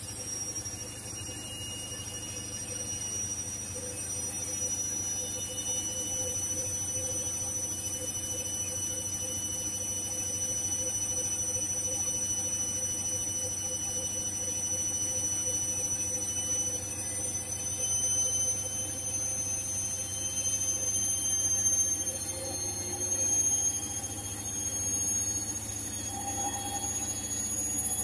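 Hoover H-Wash and Dry washer-dryer in its spin cycle: a steady high-pitched motor whine that climbs slowly as the drum picks up speed, over a low hum.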